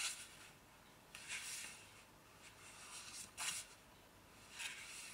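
Book pages being turned: several soft, faint paper rustles and swishes, one of them sharper about three and a half seconds in.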